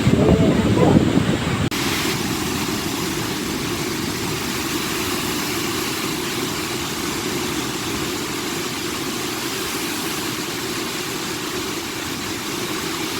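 Steady roar of the flooded Lembah Anai waterfall, an even rushing noise without pitch. It follows a louder, gusty rumble in the first second and a half that cuts off abruptly.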